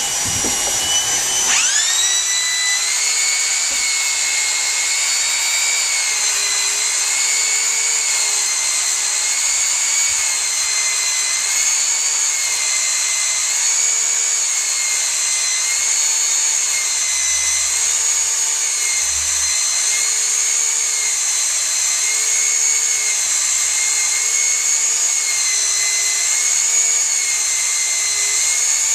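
HSK handheld plastic extruder running while extruding a welding bead of HDPE. Its drive motor spins up to speed about a second in, then runs with a steady high whine that wavers slightly in pitch every couple of seconds as the screw draws in and melts the self-feeding rod.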